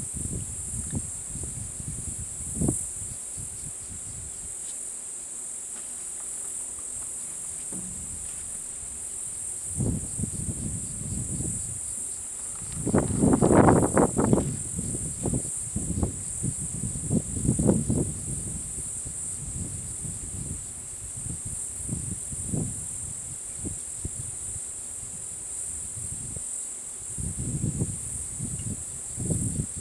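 Steady, shrill chorus of insects in dry bush, with several irregular bursts of low rumbling noise, the loudest about halfway through.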